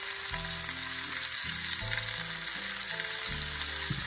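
Tinned sweet corn, peas and carrots sizzling in hot oil in a wok, just after being tipped in. Soft background music with held low notes plays underneath.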